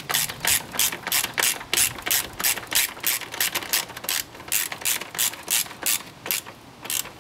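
Hand socket ratchet wrench clicking as it is swung back and forth to turn a bolt, in quick strokes of about three a second, with a brief pause near the end.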